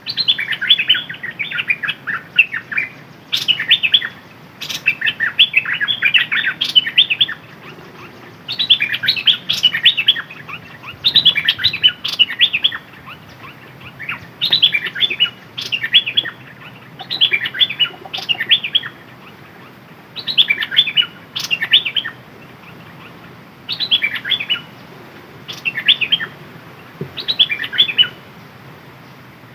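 A caged decoy songbird singing: a dozen or so short phrases of rapid, high chattering notes, each about a second long, repeated every two seconds or so with brief pauses between them.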